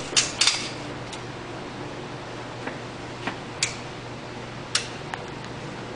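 Gunshots at an indoor shooting range: about eight short, sharp cracks at uneven intervals, the loudest two within the first half-second, over the steady hum of the range's ventilation.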